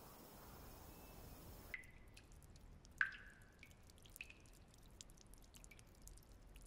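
Near silence with a few faint drip-like plinks, the loudest about three seconds in.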